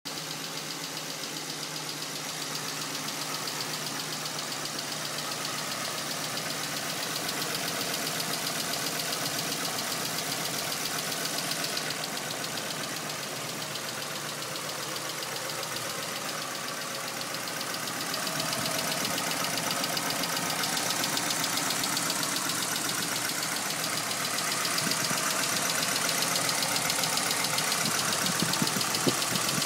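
Nissan Silvia S15's SR20DET turbocharged four-cylinder engine idling with a fast, steady ticking. The sound grows a little louder in the second half.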